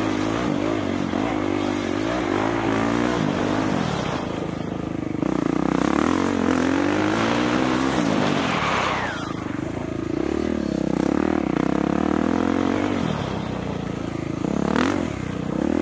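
Dirt bike engine being ridden hard, its pitch rising and falling over and over with the throttle. There is a sharp quick rev just before the end.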